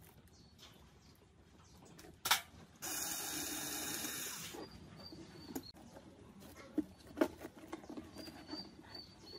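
A cordless screwdriver runs steadily for about a second and a half, backing out a screw that holds a tweeter in an old speaker cabinet. A sharp click comes just before it, and scraping and light knocks from handling the crumbling particleboard cabinet follow.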